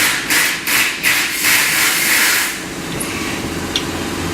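Compressed-air tool hissing in a quick series of short bursts, then one longer burst, followed by a steady low hum.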